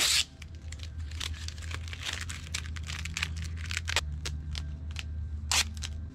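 Duct tape being pulled off the roll and handled, a series of crackly tearing and crinkling noises, with a louder rip right at the start and another sharp one near the end.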